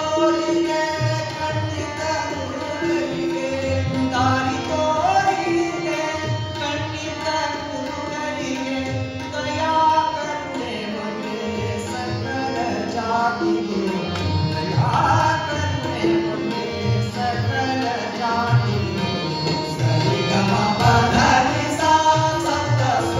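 Male voice singing Hindustani classical-style vocal music, accompanied by tabla strokes and harmonium.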